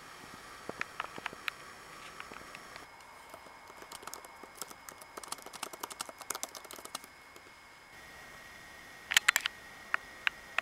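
Typing on a laptop keyboard: quick, irregular key clicks, densest in the middle. Near the end comes a short burst of louder clicks.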